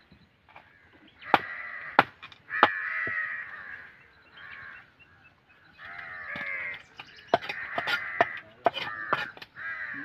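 Crows cawing repeatedly, with sharp knocks from a heavy knife chopping fish on a wooden block: three chops about a second in, then four more around seven to nine seconds in.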